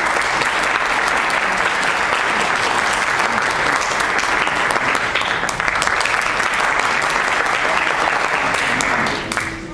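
Audience applauding steadily, dying down about nine seconds in.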